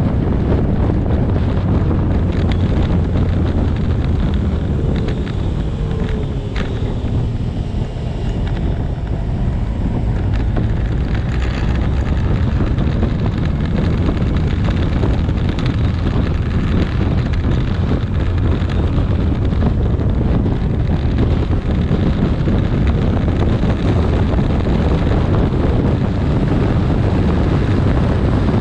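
Heavy wind rush on the microphone of a Kawasaki 1400 Concours motorcycle riding at steady road speed, with a low steady drone underneath.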